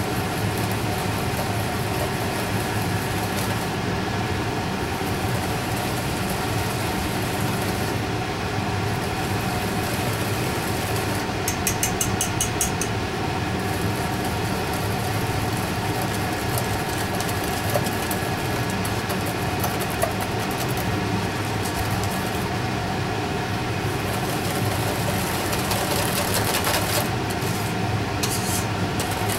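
Wire whisk beating mascarpone into an egg-yolk custard in a stainless steel bowl, with a quick run of clinks against the bowl about twelve seconds in, over a steady mechanical hum.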